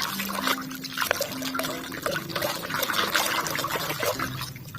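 Water splashing and trickling as toys are washed, uneven in loudness, with scattered light clicks.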